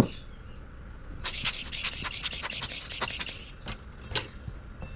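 Digital caliper jaw being slid along its steel beam to measure a small watch part: a fine rasping scrape lasting about two seconds, followed by two small clicks.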